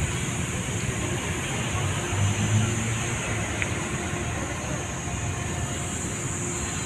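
Steady city traffic noise from a nearby street, with a vehicle engine swelling about two seconds in.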